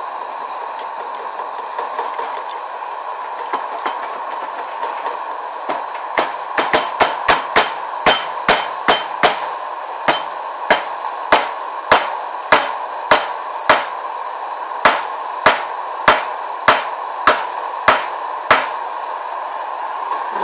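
Sharp, hammer-like knocks over a steady hiss. They start about six seconds in, come quick and uneven at first (about three a second), then settle to one blow roughly every 0.6 s before stopping shortly before the end.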